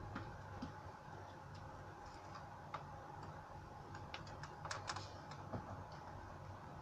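Scattered light clicks and taps from small objects being handled, with a quick run of sharper clicks about four to five seconds in, over a faint steady hum.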